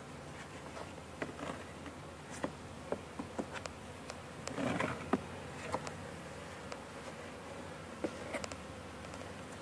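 Honeybees buzzing steadily around an open hive, broken by scattered light clicks and knocks as gloved hands and a hive tool work the wooden hive-top feeder.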